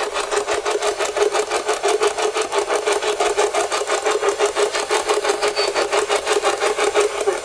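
Ghost-hunting spirit box scanning through radio stations: a rapid, even chopping of radio static with a steady tone underneath.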